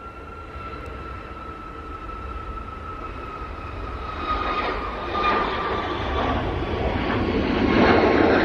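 Jet engines of a Cathay Pacific twin-engine widebody airliner on its landing roll. A steady whine slides slightly lower in pitch, under a roar that grows louder from about halfway through.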